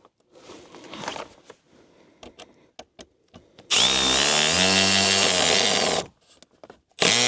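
A cordless drill spinning up and driving a screw for about two seconds, after light handling clicks, then starting again near the end.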